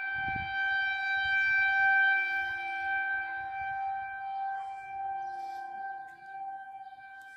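Outdoor tornado warning siren sounding a steady held tone during a test, swelling to its loudest about two seconds in and then slowly fading. A brief low rumble comes at the very start.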